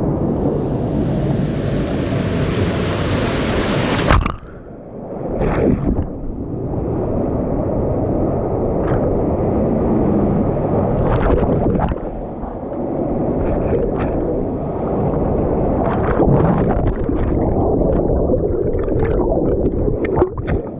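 Rushing water of a water-park wild river ride heard from the rider's point of view, a steady churning wash. A brighter hiss breaks off suddenly about four seconds in, and sharp splashes come again and again in the second half.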